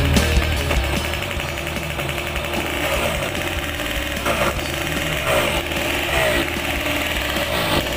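Yamaha RX King's single-cylinder two-stroke engine running at idle, a rapid even exhaust beat.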